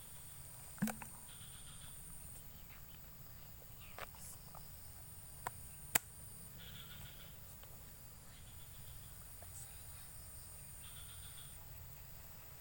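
High, steady insect buzzing that stops and starts in three stretches of a few seconds, with short chirping calls and a few sharp clicks, the loudest about a second in and about six seconds in.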